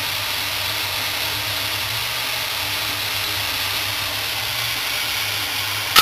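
Compressed air hissing steadily out of an air tank as it is bled down, over a low steady hum. Right at the end a single sharp click, as the pressure switch cuts in at about 75 psi to start the tandem fridge-compressor air compressor.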